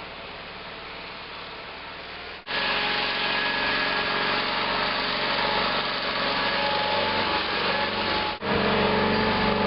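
Sears 18/6 garden tractor engine running steadily. It is quieter at first, jumps abruptly louder about two and a half seconds in, and cuts out for an instant near the end before running on.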